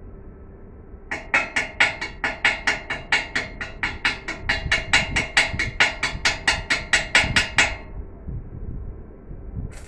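Rapid hammer blows on steel, about four a second for some six seconds, each with a short metallic ring. A hiss starts just before the end.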